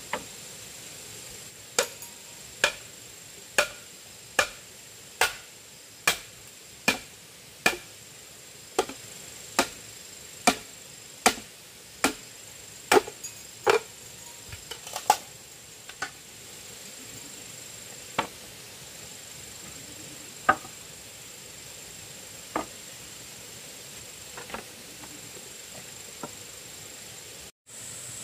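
A hand tool striking bamboo in steady blows: a sharp knock a little more than once a second for about fifteen strokes, then slower, scattered strikes.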